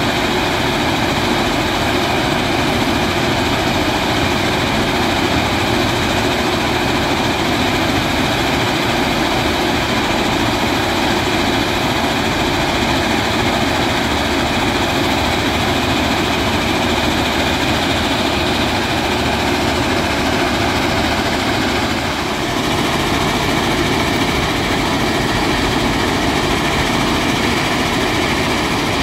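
Matisa C75 ballast cleaning machine working on the track: a loud, steady mechanical din of engines and machinery. The sound shifts slightly about three-quarters of the way through.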